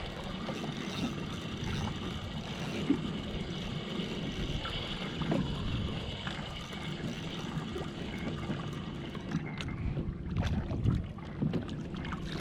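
Fishing reel being wound in steadily on a hooked fish, over water and hull noise from a kayak; the winding stops about nine and a half seconds in, followed by a few sharp clicks.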